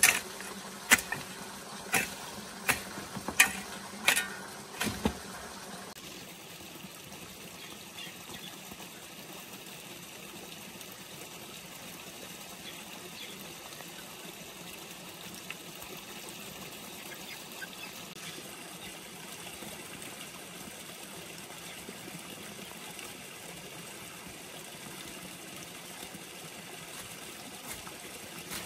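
A long-handled hoe chopping into weedy soil: about seven sharp strikes a little under a second apart, stopping about five seconds in. After that only a steady soft hiss remains.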